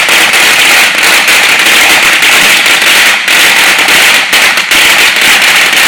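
A long string of firecrackers going off in an unbroken, rapid crackle of bangs, loud and without pause.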